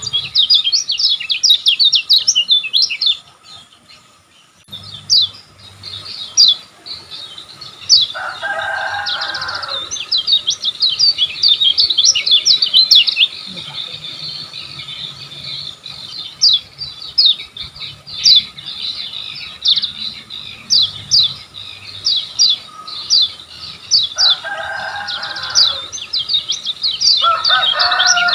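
Kecial kuning white-eye singing a fast, high twittering song of quick down-slurred notes in rapid bursts, with a pause about three seconds in. A few lower, harsher calls break in around eight seconds and again near the end.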